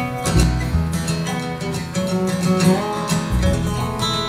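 Instrumental string-band playing before the vocals come in: strummed acoustic guitar, plucked upright bass notes, and a slide guitar played flat on the lap.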